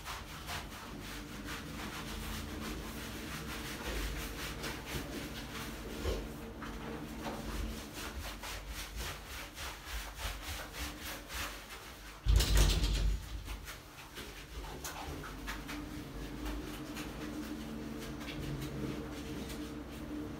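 Hands scrubbing shampoo lather into a wet, short-coated Dogo Argentino in a shower cabin: a continuous wet rubbing with many quick strokes. A louder bump sounds about twelve seconds in.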